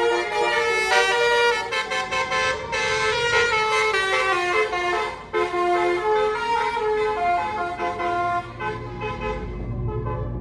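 A tour bus's Basuri 'telolet' musical horn playing a tune, several notes at once stepping from one to the next. The melody fades near the end as the bus's low engine note starts to rise.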